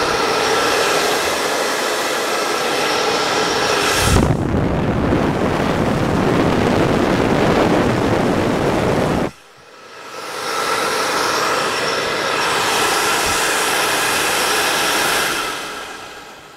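Fasco draft inducer squirrel-cage blower running with a steady whine. About four seconds in it turns into a heavier rushing noise, which cuts out abruptly about halfway through and builds back up a second later. Near the end the motor is switched off and winds down quickly, which the owner takes as a sign of its bearings seizing up.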